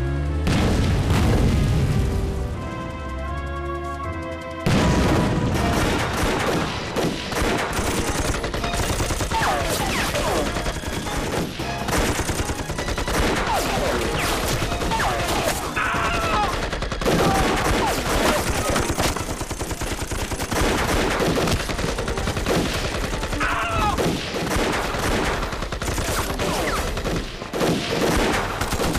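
Staged film battle soundtrack: a few seconds of music over a heavy low rumble, then dense rapid gunfire from rifles and machine guns runs on, with shouts now and then.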